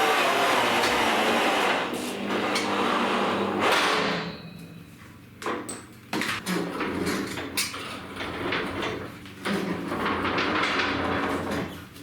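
A motor runs steadily for about two seconds and then stops. Irregular knocks, clanks and clicks follow, some sharp and loud.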